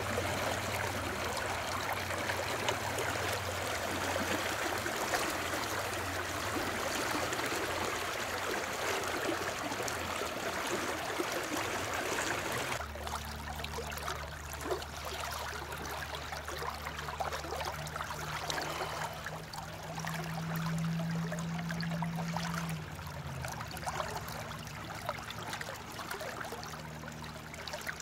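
River water flowing and trickling around a wading angler's legs. About 13 s in the sound changes abruptly, becoming quieter, with a steady low hum underneath.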